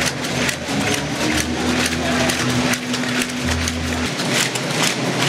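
Handball crowd in a sports hall clapping fast and unevenly, many sharp claps a second. A steady low tone sounds under it and stops about four seconds in.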